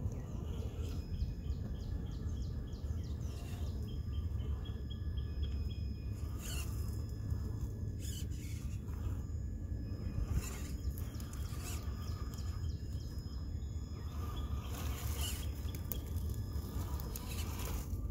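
Small birds chirping in repeated short phrases over a steady low rumble, with a few brief rustling bursts.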